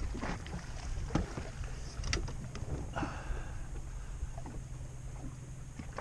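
A boat's motor humming steadily at a low pitch, with wind on the microphone and a few scattered knocks and clatters of gear being handled on board.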